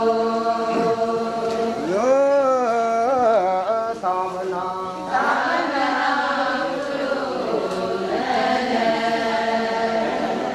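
Group chanting of an Adi Ponung song: held sung notes from many voices, with a single voice sliding up and down about two seconds in, then the fuller group singing together from about five seconds in.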